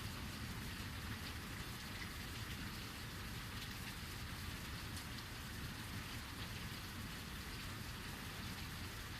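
Heavy rain pouring steadily, a dense even hiss with faint scattered drop ticks and a low rumble beneath.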